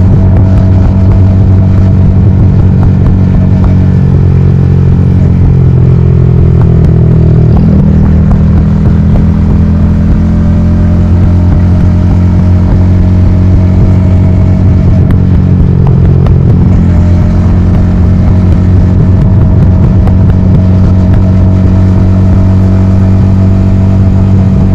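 Yamaha XSR155's single-cylinder engine running at cruising speed through a DIY full-system aftermarket exhaust, heard from the rider's helmet. The engine note is steady, steps up in pitch about eight seconds in, and shifts again a little past the middle.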